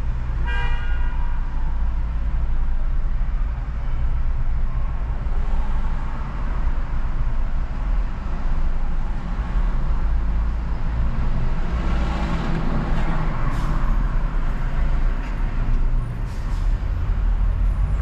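Steady deep road and engine rumble of a car driving through city traffic, with a short vehicle-horn toot about half a second in. The traffic noise swells briefly around twelve seconds in.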